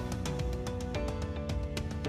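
Background music: a gentle plucked guitar track with a steady beat.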